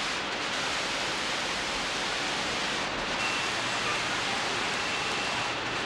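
Torrential hurricane rain pouring down steadily, an even, unbroken hiss.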